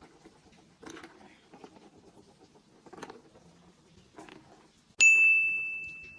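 Marbles clicking and rattling softly along a plastic building-block marble run, then about five seconds in a marble strikes a chime piece, which gives one clear high ding that fades.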